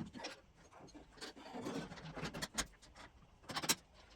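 Irregular workshop clatter of tools and parts: scattered knocks, clicks and scraping, with a cluster of sharper knocks about three and a half seconds in, as the rear axle is fitted and bolted up in the stock car.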